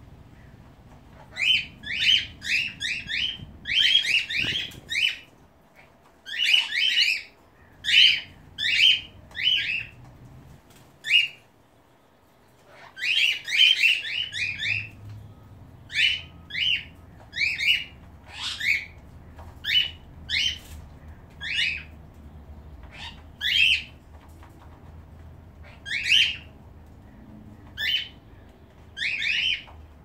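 Cockatiels calling: many short, high calls in quick runs of several, with a brief pause about twelve seconds in.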